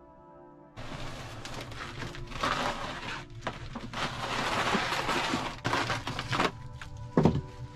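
Split firewood logs clattering and knocking against each other as they are piled by hand into a firewood carrier, with a few separate sharp wooden knocks near the end.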